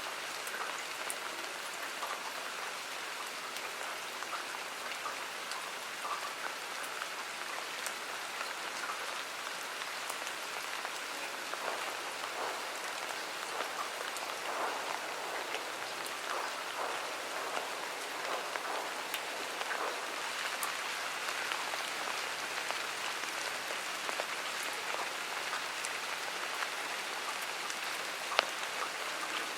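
Steady rain falling in a garden, with many individual drops ticking on nearby surfaces and one sharper drop tick near the end.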